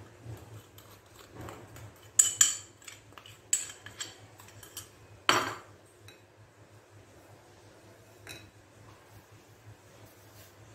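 Several sharp clinks against a glass mixing bowl, two close together about two seconds in and the loudest about five seconds in, as powder is tipped in from a small glass bowl. After that come quieter sounds of a hand working the crumbly roasted besan mixture in the bowl.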